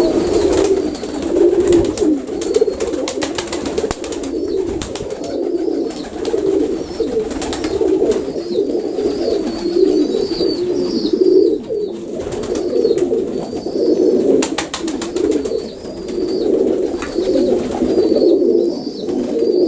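Many domestic Baku pigeons cooing at once, their calls overlapping without a break, with faint short high chirps over them.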